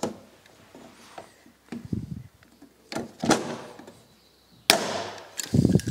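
Bench-mounted hand lever press setting a rivet in a small steel bracket: several sharp metallic clunks and clicks a second or more apart, with duller knocks between.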